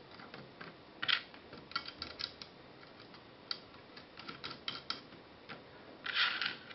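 Scattered light clicks and taps of small hardware being handled: PCB spacers being set onto a Raspberry Pi board on its case plate. Near the end there is a brief scraping rustle as small washers are picked up off the table.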